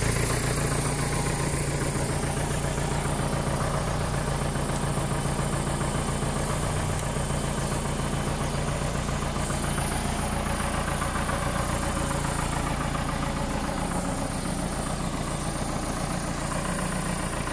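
Nuffield 460 tractor engine idling steadily.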